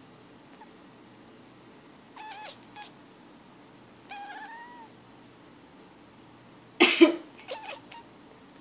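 A pet cat gives two short meows, the second rising then falling in pitch. About seven seconds in, a woman coughs twice sharply, the loudest sound here, and the cat answers right after with a few quick short meows.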